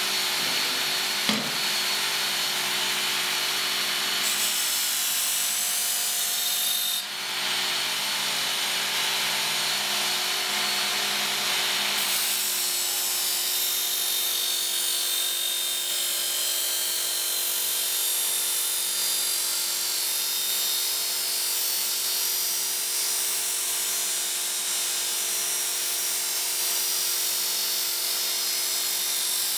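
Work Sharp Ken Onion belt sharpener running on its coarse red abrasive belt, grinding a steel machete blade to shape the edge bevels: a steady motor hum with a hissing grind. The grind drops briefly about seven seconds in, when the blade leaves the belt.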